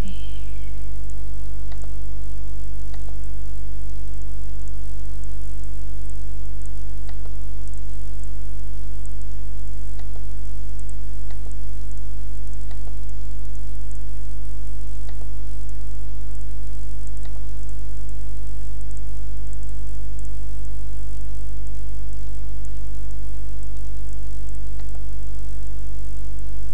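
Loud, steady electrical hum with a stack of unchanging overtones and a hiss, picked up by the recording microphone. A few faint clicks come and go over it.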